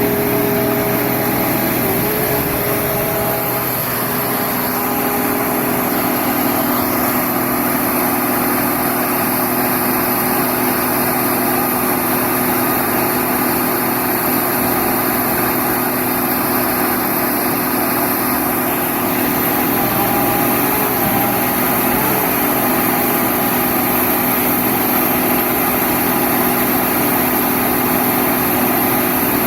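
The power unit of a 2006 Al-Jon 580 car logger/baler running steadily, a loud even engine drone with a steady whine over it. Its pitch dips briefly about two seconds in and again about two-thirds of the way through.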